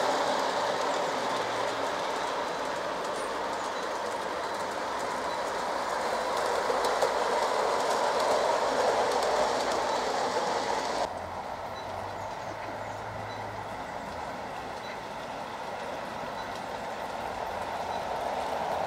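Outdoor garden-railway model trains (LGB narrow-gauge, large scale) running on brass track: a steady rolling rush of small wheels with clicking over the rail joints. It drops off suddenly about eleven seconds in, then grows louder again near the end as a train approaches.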